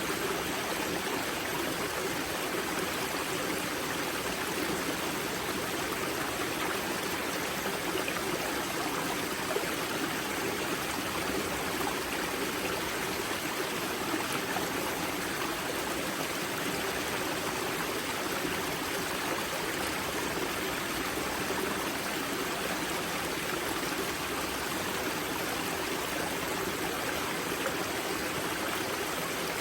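Water of the river Grza rushing and splashing steadily at its spring source, a continuous stream sound.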